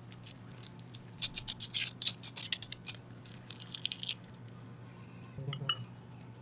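Utensils clicking and tapping against dishes in a rapid run of light clinks, then a short cluster of taps near the end, over a steady low hum.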